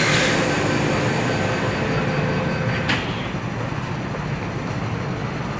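MTR Tsuen Wan Line train's doors and platform screen doors closing. A warning tone sounds with a hiss at the start and runs for about three seconds, then the doors shut with a knock. The stationary train hums low and steady underneath.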